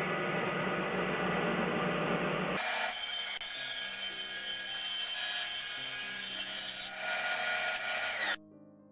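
Power saw cutting plywood: a loud, steady cutting noise in two spliced stretches, which stops abruptly near the end.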